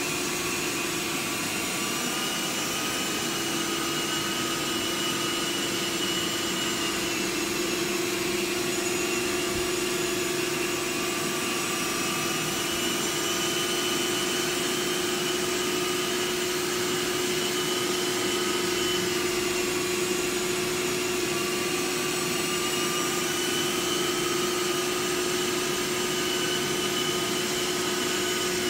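Rotovac rotary carpet extractor running over carpet: a steady rush of suction with a constant hum and a few high whines that drift slightly in pitch.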